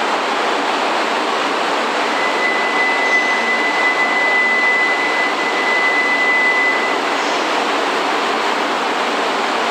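E3 series Shinkansen train standing at a covered platform, its equipment running with a steady loud rushing hiss. A thin, high, steady tone sounds from about two seconds in until about seven seconds.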